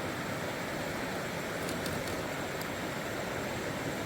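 River water rushing steadily, with a few faint light ticks about two seconds in.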